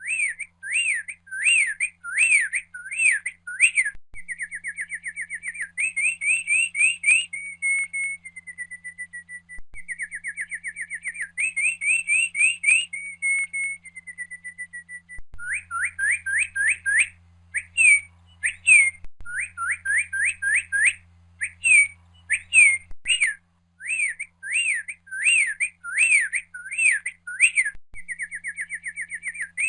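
A songbird singing a varied song: runs of quick whistled notes sliding up and down, several a second, alternating with fast even trills, the phrase switching every few seconds.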